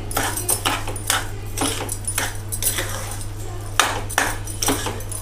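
A spoon stirring and scraping grated carrots and granulated sugar around a metal pot, with scraping strokes about twice a second. The sugar has just gone in and is being mixed through the carrots for gajar ka halwa.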